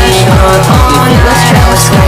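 Loud electronic dance music with a steady, fast kick-drum beat and synth chords.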